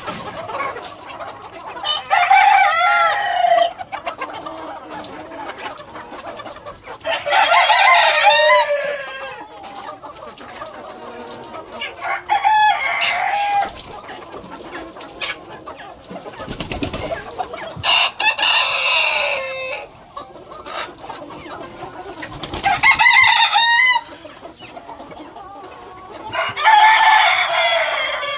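A pen full of young Siruvidai native roosters, about six crows coming one after another every four to five seconds, each one to two seconds long, over steady clucking from the flock.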